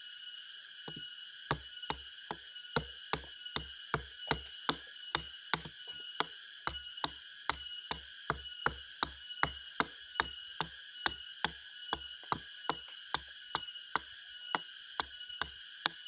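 A machete striking the flower stalk of a sugar palm (aren) over and over in an even rhythm, a bit more than two sharp knocks a second, starting about a second in.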